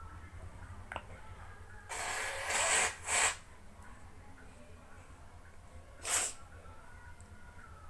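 An ill dog sneezing and snorting: a long hissing blast about two seconds in that ends in a sharp snort, and one short sneeze about six seconds in.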